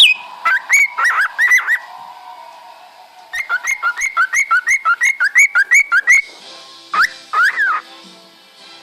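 Pet cockatiel calling: a few short chirps, then a quick even run of repeated chirps, about four a second, and near the end two longer whistles that rise and fall in pitch.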